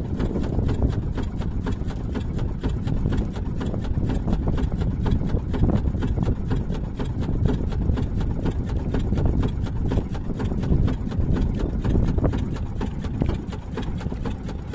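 Small fishing boat's engine running with a rapid, even thudding beat.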